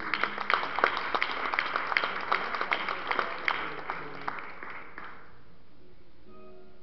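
Congregation applauding, a round of separate hand claps that thins out and dies away about five seconds in.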